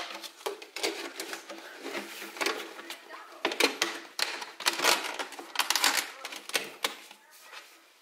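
Glass jars and cloches clinking and knocking as they are picked up and set down on a wooden shelf: a quick, irregular run of sharp clicks and taps, loudest in the middle seconds.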